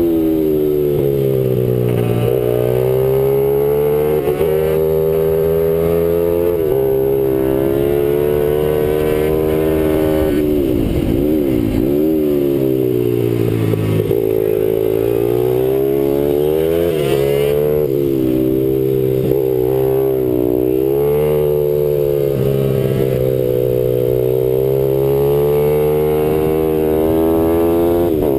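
RAV SM7 pit bike's 160 cc single-cylinder four-stroke engine heard on board at speed. The revs climb through the gears and fall away under braking, with a deep drop about eleven seconds in for a slow corner.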